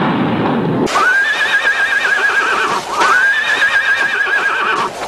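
A horse whinnies twice in a row. Each neigh is about two seconds long, sweeping up in pitch and then quavering. In the first second a low rumbling crash is dying away.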